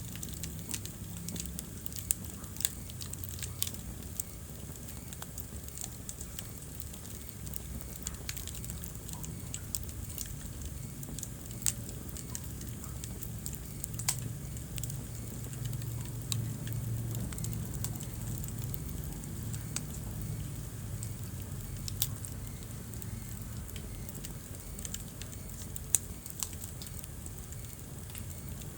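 Wood fire burning in a fireplace: a steady low rumble of flames with scattered crackles and several sharper pops from the burning wood.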